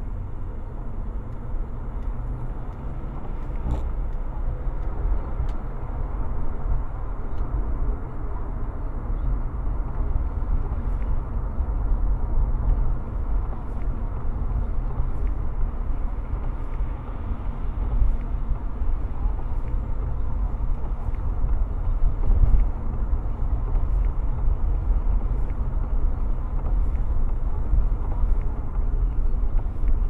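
Steady low rumble of road and tyre noise heard inside a moving car's cabin on a wet highway.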